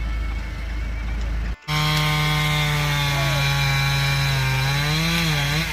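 A steady machine hum, then an abrupt cut to a gas chainsaw running at high speed during tree trimming. Its steady pitch dips and recovers near the end.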